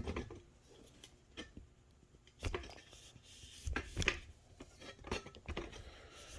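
Scattered metallic clinks and knocks of hand tools being handled in a steel tool box drawer, a few separate strikes with the clearest about two and a half and four seconds in.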